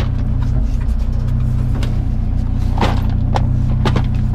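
A plastic parts-organizer box being handled and set down in a pickup truck bed: several short hard knocks and clatters over a steady low hum.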